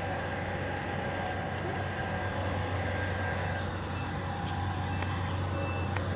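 Construction machinery running steadily, a low engine drone with a constant hum, with a few faint short high tones late on.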